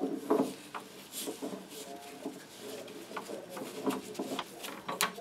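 Scattered light metal clinks and knocks, with rubbing, as a faceplate is handled and threaded onto an Atlas 618 lathe spindle by hand.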